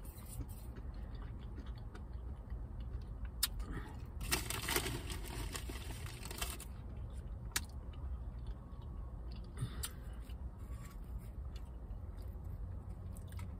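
A clear plastic food container handled in the hands: scattered clicks and a crinkling rustle about four to six and a half seconds in, over a steady low rumble inside the car.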